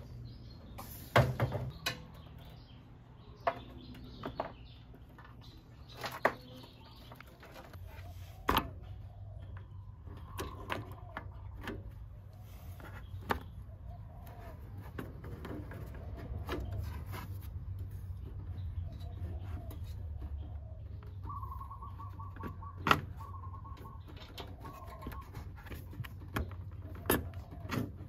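Scattered clicks and knocks of hands handling metal and plastic parts of a scooter's handlebar and front fork, at irregular intervals, over a low steady hum. Birds chirp in the background.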